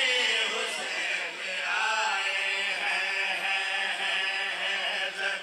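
Men's voices chanting a devotional refrain together into microphones over a PA, drawing out long held notes.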